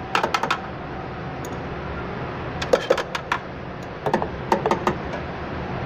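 Open-end wrench clicking against a steel brake-line flare nut at the master cylinder, in three short clusters of sharp metal clicks, as the fitting is cracked to bleed air from the line.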